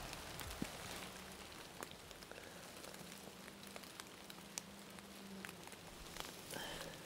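Quiet woodland ambience: a soft hiss with faint, irregular ticks and patter, like drops or light debris landing on dry leaves.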